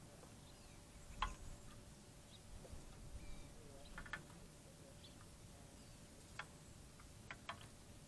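Song sparrow bathing in a shallow bird bath: several faint, short splashes as it dips and flicks water with its wings, one about a second in, a cluster around four seconds, and a few near the end.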